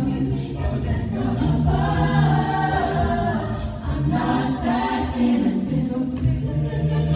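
A cappella group singing in close harmony, with sustained chords that change every second or so.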